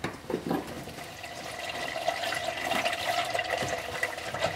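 Engine oil pouring in a steady stream out of the drain hole of a 2016 Subaru WRX's oil pan into a drain pan, as the drain bolt comes free. The pour builds about a second in and then holds steady.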